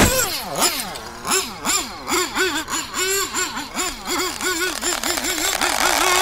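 Cartoon sound effect of a small engine sputtering and revving, its pitch wavering up and down about three times a second and quickening toward the end, after a sharp crack at the very start. It gives a sock pegged on a clothesline the engine of a plane warming up for take-off.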